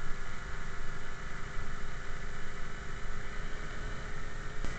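Small engine of a motorized bicycle running at a steady speed while riding, over a rumble of wind on the microphone.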